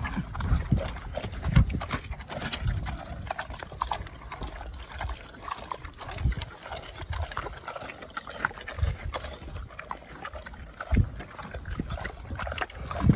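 A pig eating soft papaya up close, chewing with irregular wet smacking clicks, over repeated low thumps.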